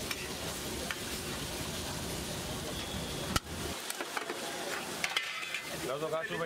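Egg gravy sizzling in a large flat pan while a metal spatula stirs and scrapes through it. A single sharp metallic clank comes about three and a half seconds in, and steel plates clink near the end.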